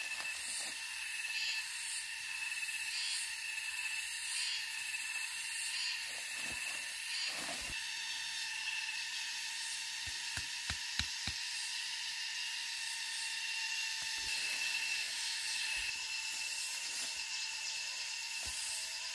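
Steady, high-pitched drone of forest insects, pulsing rapidly during the first few seconds. About ten seconds in comes a quick run of sharp clicks, like dry twigs and leaf litter being handled.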